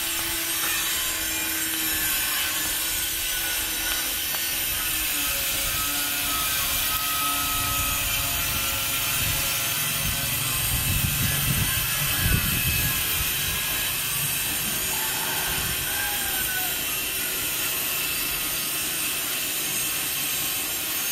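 A steady machine-like drone with a hiss over it. About halfway through there is some low rubbing and rustling.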